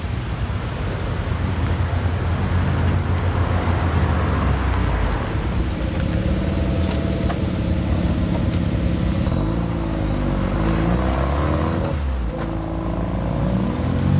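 A lowered car's loud aftermarket exhaust as it drives off, the engine note rising and falling as it is revved several times.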